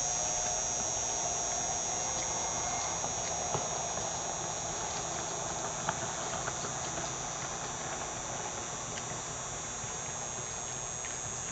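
Distant 2008 Yamaha FX HO Cruiser personal watercraft running at speed, a faint engine drone that slowly fades as it moves away, under a steady high-pitched hiss.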